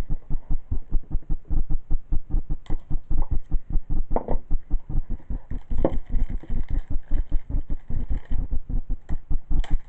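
A rapid, steady low throbbing of about seven pulses a second, with a few short knocks and rustles as a plastic DVD case is taken out and handled.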